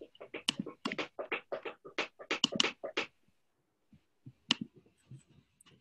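Typing on a computer keyboard: a quick run of key clicks for about three seconds, then a pause and a few scattered clicks, one sharper than the rest.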